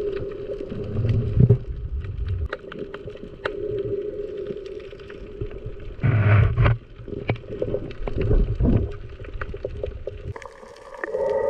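Underwater sound heard through an action camera's housing: a steady hum with many scattered sharp clicks and low water rumbles, and a louder rush of water about six seconds in as the speared fish is pulled close.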